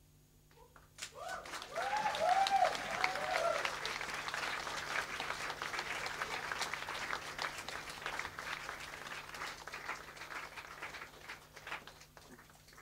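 Audience clapping and cheering in a small club, starting about a second in, with a few shouted whoops at about two to three seconds; the clapping thins out and dies away near the end.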